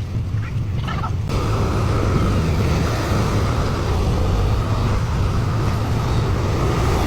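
Excavator's diesel engine running with a steady low rumble, joined about a second in by a louder, steady rushing noise.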